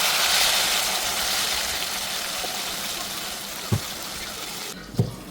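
Water running in a steady hissing stream, slowly weakening and stopping near the end, with two short dull knocks.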